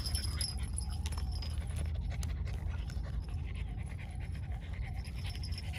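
French bulldog panting close by, over a steady low rumble.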